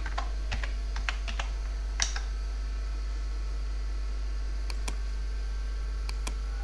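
Typing on a computer keyboard: a quick run of key clicks entering a number, then a single click and a few more clicks near the end, over a steady low electrical hum.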